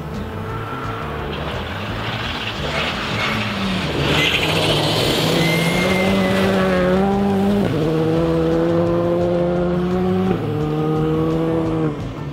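Rally car at full effort on a gravel stage. The engine revs hard through a corner with gravel spraying, then it accelerates and shifts up twice, the pitch dropping sharply at each shift.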